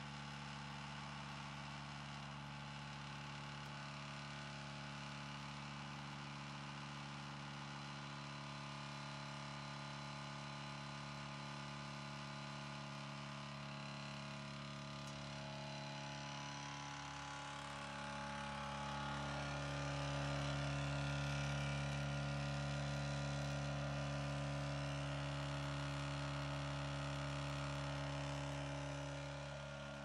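Small electric air compressor running with a steady hum. It grows louder for about ten seconds in the second half, then drops back.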